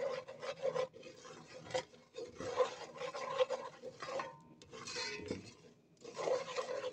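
Wooden spoon scraping and stirring thick caramel against the bottom of a metal pot, in uneven rasping strokes with short pauses. The caramel has just had butter and baking soda mixed in.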